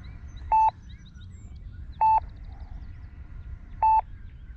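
RC transmitter beeping: three short, identical electronic beeps, about one and a half to two seconds apart. This is the warning that the transmitter's flight timer has expired.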